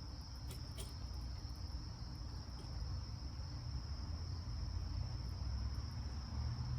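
Crickets trilling steadily, with a low rumble of handling noise underneath and a couple of light clicks about half a second in.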